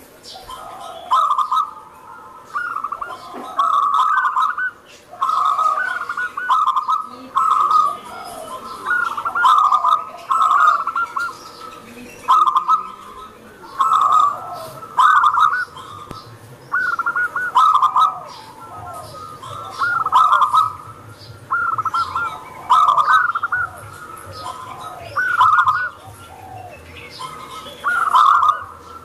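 Zebra dove (local perkutut) singing: short, rolling cooing phrases repeated about every second to second and a half.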